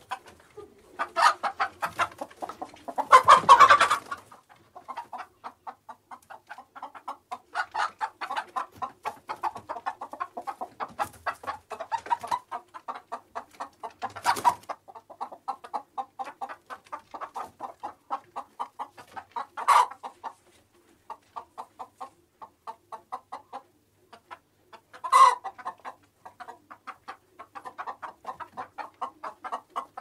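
Chickens clucking in a near-continuous stream of short, rapid clucks, with a few louder calls standing out, the loudest about three seconds in.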